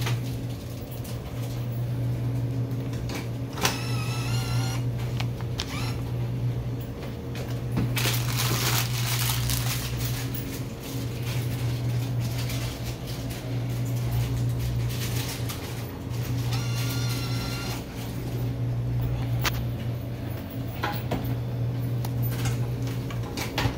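A steady low electrical hum throughout, with scattered clicks and rustles of handling. Two short, warbling high-pitched sounds come about 4 seconds and 17 seconds in.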